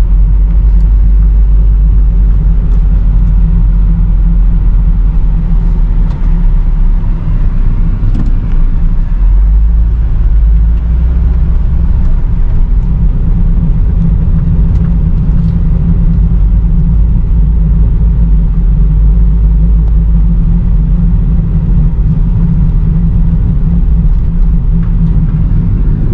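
Steady, loud low rumble of a van driving, heard from inside the cabin.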